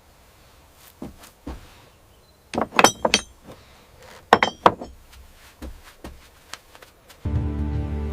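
Scattered sharp clicks, with two short bunches of loud knocks and clinks that ring briefly, a few seconds in and again a little later; soft music starts near the end.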